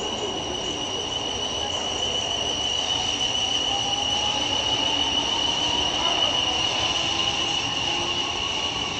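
South West Trains passenger train running through the station on curved track, a steady rumble with a high, steady squeal held throughout and a fainter lower tone that slowly rises in pitch partway through.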